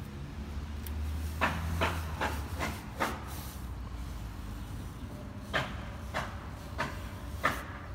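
Short rasping strokes in irregular groups as a fresh cast stone repair patch is wetted and smoothed by hand, with a low rumble under the first couple of seconds.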